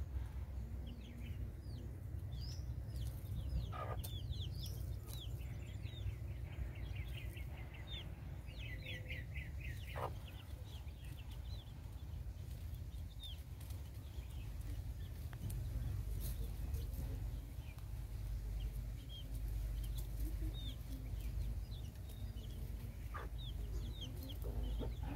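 Chickens calling, with short high chirps scattered throughout and two quick runs of chirps, over a steady low rumble; a few sharp clicks stand out.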